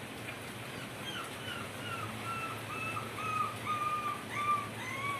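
Steady rain with a bird calling from about a second in: a run of short, repeated notes, two or three a second, slowly falling in pitch.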